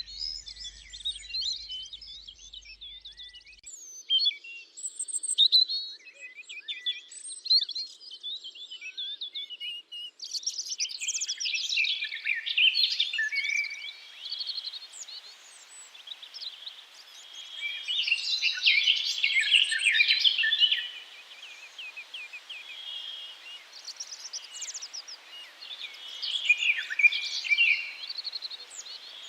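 Several songbirds singing and chirping together, many short overlapping chirps and trills. About a third of the way in the song grows denser and louder, over a faint steady hiss.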